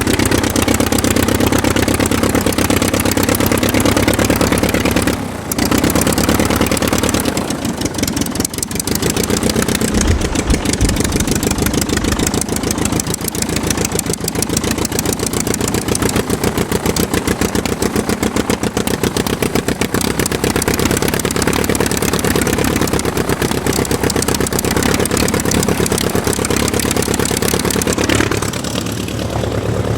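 Aircraft engine running steadily with a fast, even firing beat, dipping briefly in loudness about five seconds in and again near the end.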